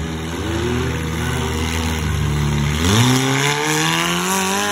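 Monster truck engine running loud, then revving up sharply about three seconds in and holding the higher pitch.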